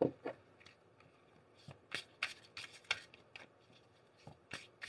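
A deck of tarot cards being picked up from the table and shuffled by hand: a sharp tap at the start, then quick irregular card slaps and flicks, busiest about two to three seconds in.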